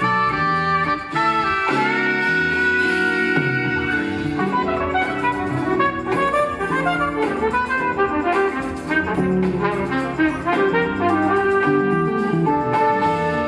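Jazz-fusion band playing live, with a horn section holding harmonised lines over guitar and rhythm section.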